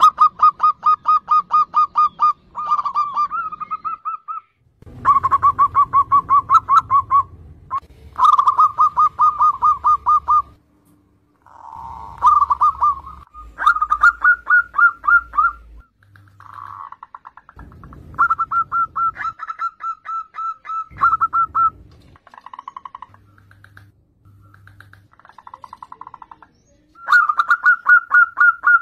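Zebra doves (perkutut) cooing in repeated phrases. Each phrase is a rapid run of short, clipped notes, about eight a second, lasting one to three seconds, with short breaks between phrases.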